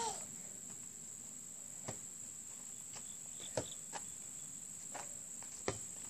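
Steady high chirring of crickets, with a few short, sharp knocks scattered through it, the loudest about three and a half and five and a half seconds in.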